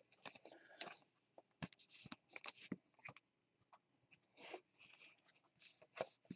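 Faint scraping and clicking of 2019 Topps Chrome baseball cards being slid and flipped off a stack by hand, in many short irregular strokes.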